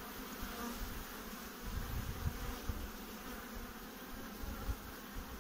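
Honeybees humming steadily around an opened hive, with a few faint low thumps.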